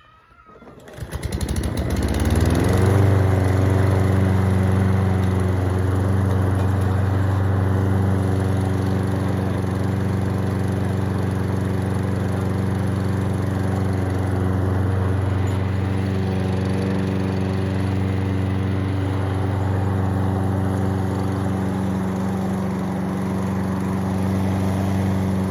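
Lawn-Boy 149cc mower engine starting about a second in, rising in pitch as it comes up to speed, then running steadily. It is running on a newly fitted carburetor and spark plug after years of sitting.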